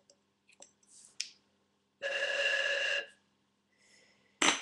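Glass cigar tube being opened: a steady squeak lasting about a second, then a sharp pop near the end as the tube comes open.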